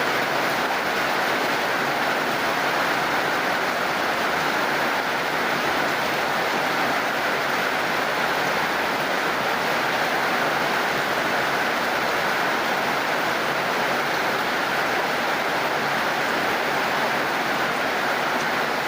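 Heavy rain falling steadily, an even hiss with no separate drops or rumbles standing out.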